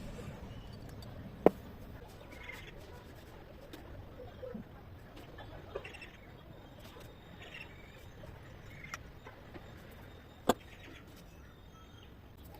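Engine parts and hand tools being handled on a workbench: two sharp knocks about nine seconds apart, a few lighter ticks between them, and faint bird chirps in the background.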